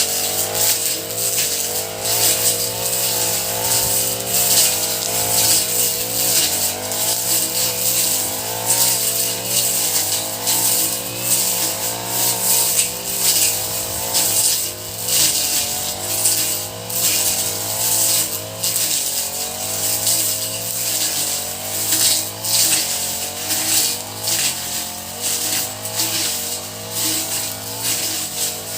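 Honda four-stroke grass cutter (brush cutter) engine running at working speed, its pitch wavering up and down continuously, with a steady high hiss flickering over it.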